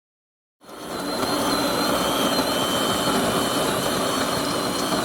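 Electric coffee grinder running, grinding coffee beans: a steady motor whirr with a high whine, starting abruptly about half a second in.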